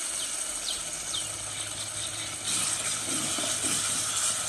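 Onion, tomato and ginger-garlic masala sizzling in ghee in a karahi, with a spatula scraping and stirring it. The sizzle gets louder about two and a half seconds in.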